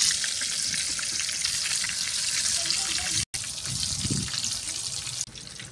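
Masala-stuffed whole eggplants deep-frying in hot oil in an iron karahi, a steady sizzle with dense crackling. The sound breaks off for an instant just after three seconds and falls quieter near the end.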